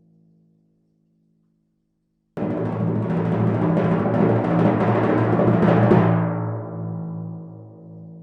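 Timpani roll: after a brief silence it starts suddenly about two seconds in and grows louder for several seconds, then the strokes stop and the drum rings on, fading. At the start the ring of a previous roll dies away.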